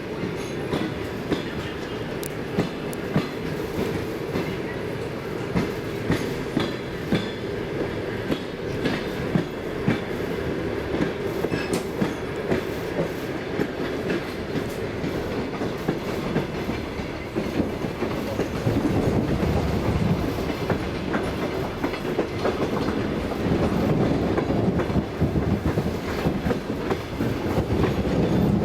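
A passenger train's carriage wheels rolling over the rails, with a steady rumble and irregular clicks and clacks from the rail joints. The sound grows louder from about two-thirds of the way in.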